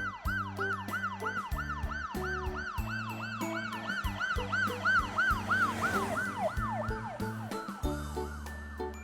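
Police siren in a fast yelp, about three rising-and-falling sweeps a second, over cheerful background music. Near the end the sweeps slow, drop in pitch and stop, leaving the music.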